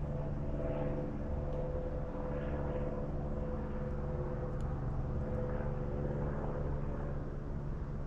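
A steady engine drone, holding an even pitch throughout.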